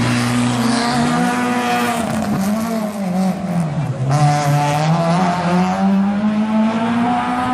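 Peugeot 106 slalom car's engine revving hard through the cone course, its pitch rising and falling as the throttle is lifted and reapplied. The revs drop steeply about two seconds in and again about four seconds in, then climb back up.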